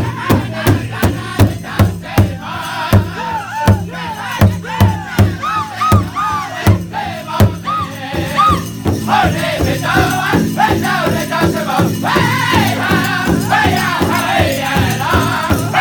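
Powwow drum group singing a Grand Entry song: a large drum struck in a steady beat, about three strokes a second, under high-pitched group singing. About halfway through, the drumbeats blur and the singing grows fuller.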